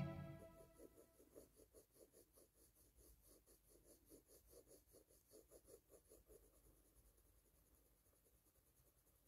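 Faint scratching of a colored pencil on paper in quick, repeated short shading strokes, stopping about six and a half seconds in.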